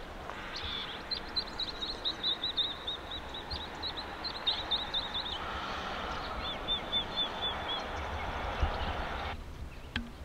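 Swallows twittering: rapid runs of short, high chirps, one lasting about five seconds and a shorter one soon after, over a steady background hiss that cuts off about a second before the end.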